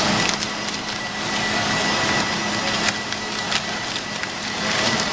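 Brown kraft paper crinkling and rustling in the hands as it is unwrapped from a mechanical seal, with many small crackles, over a steady background hum.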